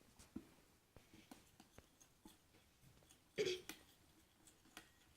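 A spoon stirring thick glue in a bowl for slime: faint scattered taps and scrapes, with one louder brief scrape about three and a half seconds in.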